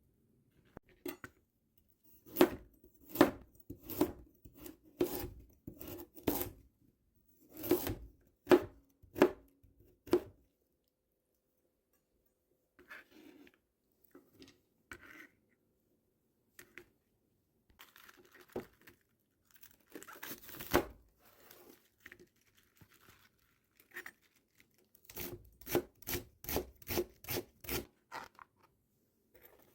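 Kitchen knife chopping food on a cutting board: slow, even strokes, then a quicker run of chops near the end.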